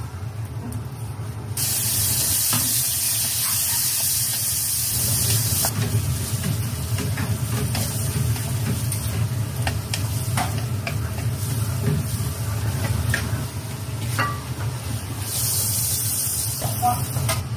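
Stir-fry of tomato, green pepper and scrambled egg in a wok. It sizzles loudly for about four seconds starting about a second and a half in, then a spatula clicks and scrapes against the pan as it is stirred, and a second burst of sizzling comes near the end as steam rises. A steady low hum runs underneath.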